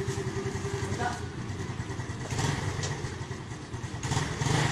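Small motorcycle engine idling with a steady low, fast putter.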